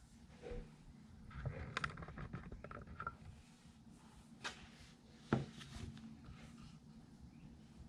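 Faint handling noises of a smartphone being picked up and held, with a few light clicks and taps and one sharper click about five seconds in.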